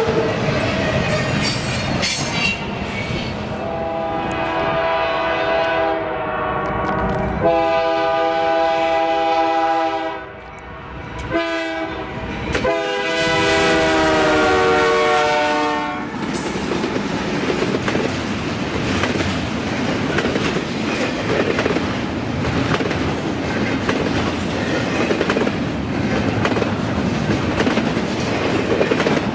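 Locomotive multi-chime air horn sounding the grade-crossing signal: two long blasts, a short one and a final long one. Then the train running past, with steady wheel-and-rail noise and clicking over rail joints.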